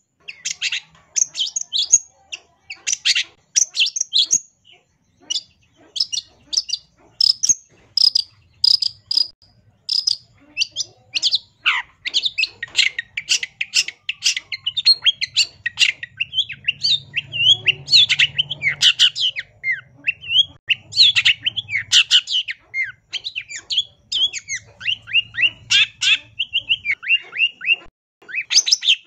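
Long-tailed shrike (cendet) singing vigorously, with mimicked phrases of other birds' calls. For the first ten seconds or so it gives short, sharp, high chips in quick succession. From about twelve seconds in the song turns into a dense, fast warble of varied notes.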